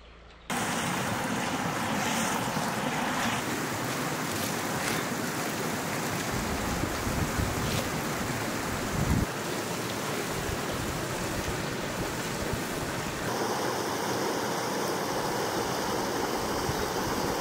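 Steady rushing of a creek's flowing water, with a brief low thump about nine seconds in.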